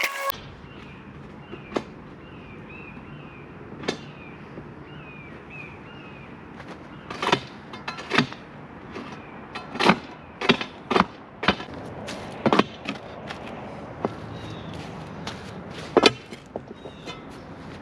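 Irregular sharp knocks and clatters of wooden concrete form boards and metal stakes being knocked loose and pulled from around a cured slab, coming thicker in the middle of the stretch. A bird repeats a short falling chirp in the background for the first few seconds.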